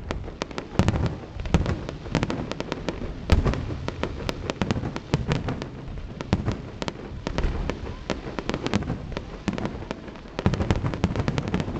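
Aerial fireworks bursting in a rapid, continuous barrage: many sharp bangs close together, with louder deep booms every second or so.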